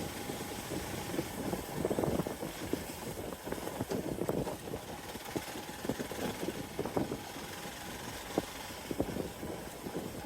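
Hero XPulse 200 Pro motorcycle's single-cylinder engine running on a dirt trail, with many irregular short knocks and rattles over it.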